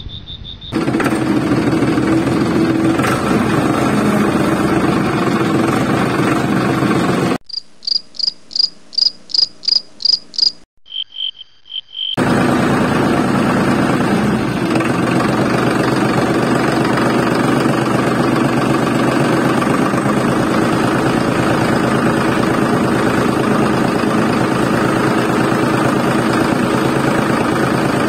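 Miniature tractor's engine sound running steadily as it pulls a cultivator. About seven seconds in it cuts out for roughly five seconds, and in its place come a run of high, evenly spaced chirps, about three a second, then a short steady high tone.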